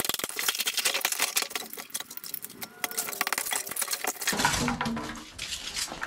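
Plastic casing and insulation of a small electric water heater cracking and crunching as they are broken and pulled off the steel tank: a dense run of sharp snaps, turning into lower scraping and crunching for the last second or two.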